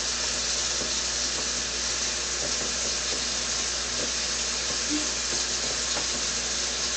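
Water running steadily from a sink faucet.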